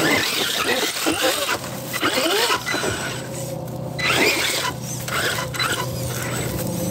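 RC rock bouncer's motor whining up and down in pitch with repeated bursts of throttle, mixed with sharp knocks and scrapes of its tires and chassis on rock.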